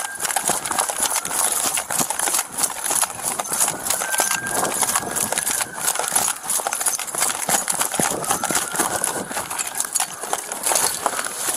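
An officer's running footsteps, with rapid thuds and the body-worn camera jostling against his gear during a foot chase. A faint tone slowly rises and falls about every four seconds behind it.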